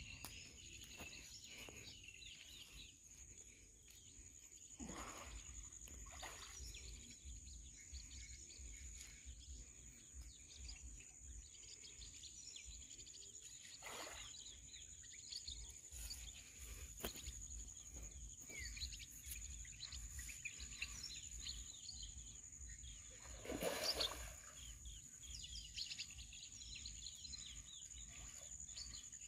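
Faint outdoor ambience: a steady high insect drone and scattered bird chirps. A hooked rohu splashes at the water's surface three times, the last and loudest splash near the end.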